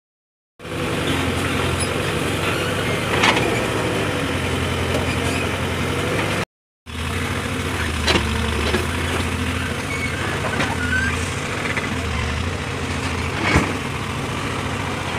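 Backhoe loader's diesel engine running steadily, with three sharp metallic clanks spread through it. A brief gap of silence falls about halfway through.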